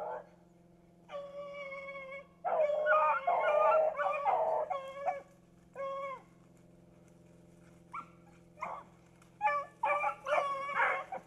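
A pack of beagles baying, with several long, overlapping howling calls in bouts and a pause of a couple of seconds in the middle. These are rabbit hounds giving voice on a rabbit's scent trail.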